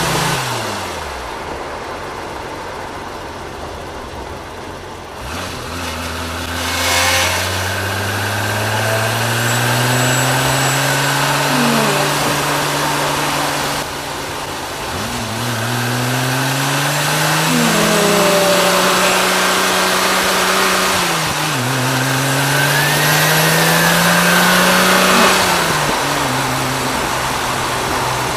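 Venturi Atlantique 300's 3-litre single-turbocharged PRV V6 accelerating hard through the gears. The engine note climbs in pitch and drops back at each upshift, several times over.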